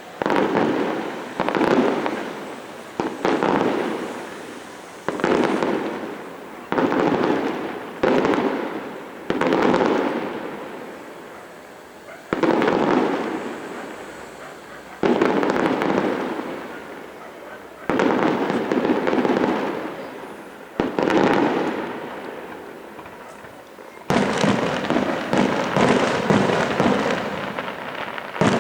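Fireworks display: aerial shells bursting one after another, about a dozen sudden bangs, each trailing off over a second or two. Near the end comes a quick run of crackling bursts.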